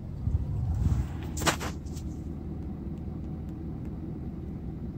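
Truck engine running, a steady low rumble heard from inside the cab, a little louder in the first second. A brief sharp rustle about one and a half seconds in.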